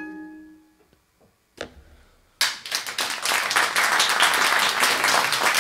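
The last accordion chord and sung note fade away, a single clap sounds in the near silence, and then the audience starts applauding about two and a half seconds in, a steady clapping of many hands.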